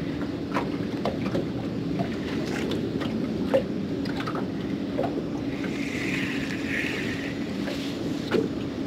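Small waves lapping and slapping against a boat's hull in a series of light irregular knocks, over a steady low hum. A brief hiss rises about six seconds in.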